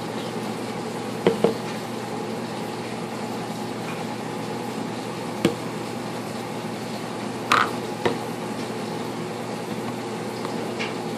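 Washing machine running with a steady hum, over which plastic baby bottles knock sharply on a kitchen counter as they are handled and set down: two close together early, one mid-way, and a louder pair about seven and a half seconds in.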